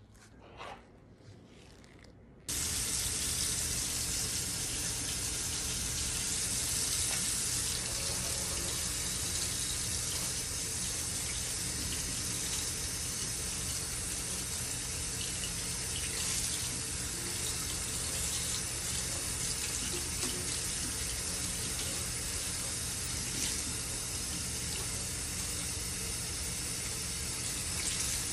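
Kitchen faucet running into a stainless steel sink, the stream splashing over a wig held under it and being worked by gloved hands. The water starts suddenly about two and a half seconds in and runs steadily after that.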